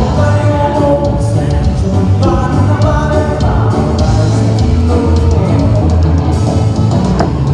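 A band playing a song through a PA system: a vocalist singing over drum kit, guitar and a heavy bass line.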